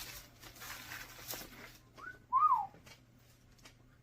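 A short two-note whistle: a brief rising note, then a louder note that rises and falls away. It comes about two seconds in, after faint rustling and clicks.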